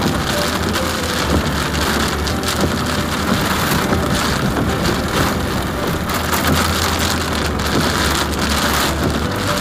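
Heavy rain falling on the roof and windshield of a moving car, heard from inside the cabin as a dense steady hiss, over a low steady hum of the car running on the road.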